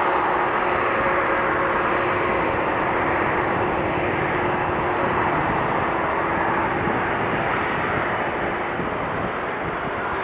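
Airbus A380-800 jetliner's four turbofan engines on its landing, a loud steady rush of jet noise with a few steady tones through it, easing off slightly near the end.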